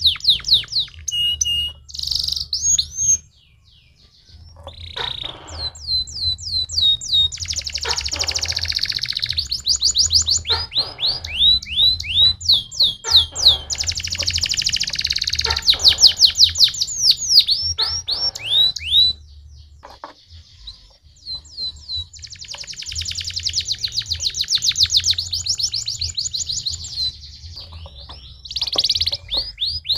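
Domestic canary singing a long song of rapid trills and fast repeated sweeping notes, broken by brief pauses about three seconds in and again around twenty seconds in.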